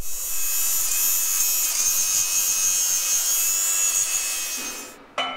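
Handheld power grinder running with a steady high-pitched whine, then spinning down near the end, followed by a sharp knock.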